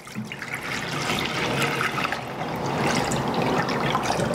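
Milk pouring in a steady stream from a jar into a glass mixing bowl, splashing as the bowl fills.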